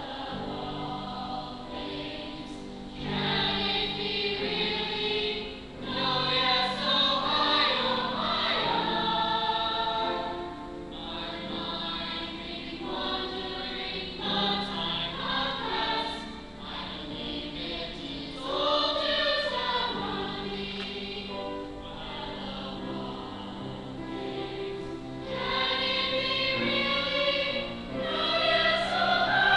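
An ensemble of stage performers singing a musical-theatre number over instrumental accompaniment. The singing swells louder in several passages and drops back between them.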